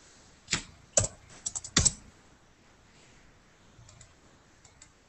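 Typing on a computer keyboard: a quick run of sharp keystrokes in the first two seconds, then a few faint taps near the end.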